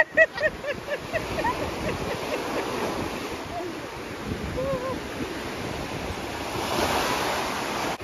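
Small surf waves washing up onto a sandy beach: a steady rush of water that swells louder as a wave breaks near the end.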